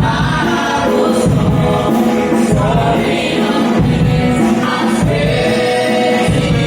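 Gospel choir singing with a band, over a steady bass and drum beat.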